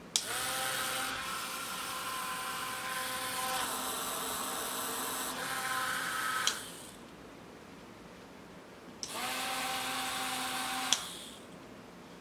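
Small DC motor of a homemade battery-powered cooling fan, switched on with a rocker-switch click and spinning up into a steady whine. It runs about six seconds, is clicked off and winds down, then is switched on again for about two seconds and clicked off.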